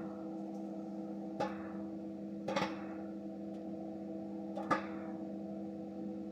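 Microwave oven running with a steady hum while popcorn kernels inside a closed cardboard box pop, three sharp pops spaced a second or two apart. The popping has thinned out, the sign that the batch is nearly done.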